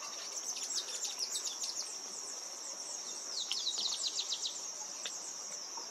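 Steady high-pitched drone of insects, with a bird's quick, high, downward-slurred chirps repeating over the first four and a half seconds, thickest toward the end of that run.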